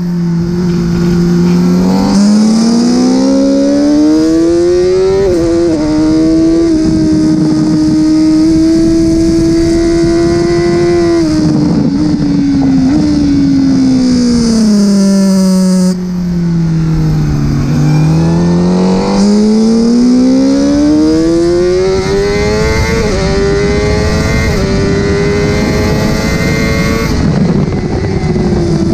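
Honda CBR1000RR-R Fireblade's inline-four engine at racing speed on track. Its note climbs in steps as it pulls through the gears, holds high, falls away while slowing for a corner, then climbs again through the gears and drops once more near the end.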